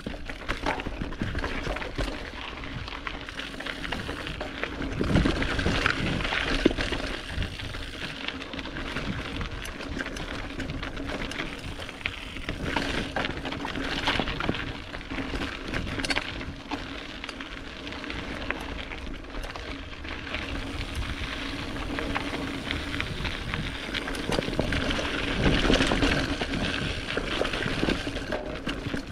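Kellys Gate 70 mountain bike riding down rocky singletrack: tyres rolling over gravel and loose stones, with frequent clattering knocks and rattles from the bike as it hits rocks.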